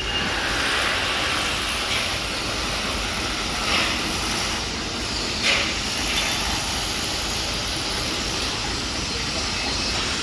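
Steady machinery noise at a pile-driving rig, with a few scattered knocks, the sharpest about halfway through; no regular hammer blows stand out.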